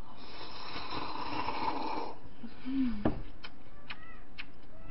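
A loud, noisy slurping sip of cold chogye-guksu (chicken noodle) broth drunk from a small bowl, lasting about two seconds. It is followed by a short hummed 'mm' and a sharp knock a little after the middle, then a few faint clicks.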